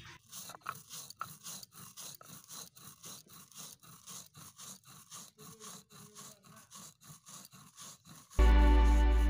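Dry-roasted fennel seeds crushed between a stone roller and a flat stone grinding slab (sil-nora): a rhythmic crunching scrape, about three to four strokes a second. Loud guitar music cuts in near the end.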